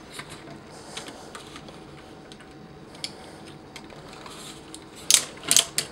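Hard plastic parts of a large Mastermind Creations Feral Rex combiner figure clicking and knocking as it is handled and repositioned. Light scattered clicks at first, then a few louder clacks about five seconds in.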